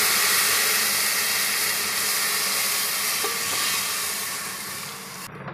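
Milk poured into a hot pan of vermicelli roasted in desi ghee, sizzling and hissing as it hits the hot fat. The sizzle fades over the last second or so.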